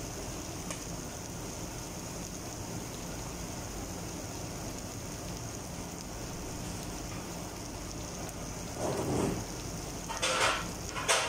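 Steady hiss of restaurant room noise. A short, muffled sound comes about nine seconds in, and two brief, sharper sounds come near the end.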